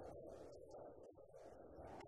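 Near silence: only a faint low background hiss.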